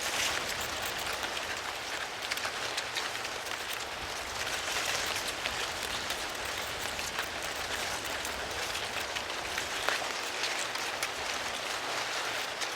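Wind through a cornfield: dense rustling and crackling of dry corn leaves and stalks, swelling with gusts a few times.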